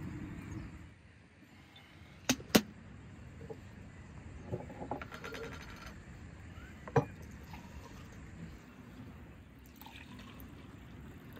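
A few sharp glass knocks on a wooden table, then red fruit drink poured from a glass jar into drinking glasses.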